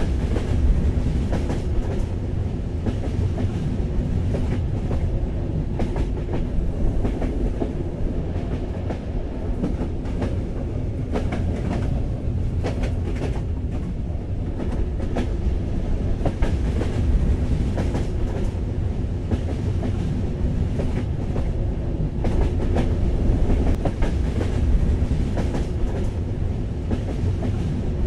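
Passenger train running, heard from inside the carriage: a steady low rumble with irregular clicks and knocks from the wheels on the track.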